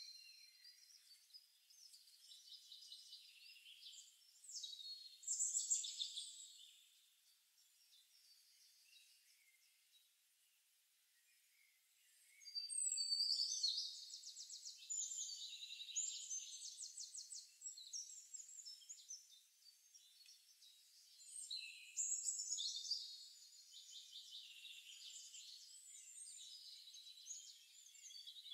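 Calm forest birdsong from a nature-sounds track: several birds chirping, with fast trills and high whistled notes. The song comes in bursts, with a near-quiet lull about a third of the way through.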